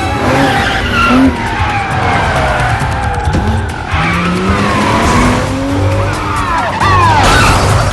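Car being driven hard, its tyres squealing through turns, over dramatic film score music.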